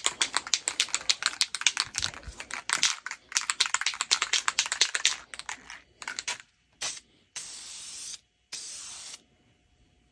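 Aerosol spray can of gun finish being shaken, its mixing ball rattling fast for about five seconds, then two short hissing bursts of spray about a second each near the end as a light coat goes on.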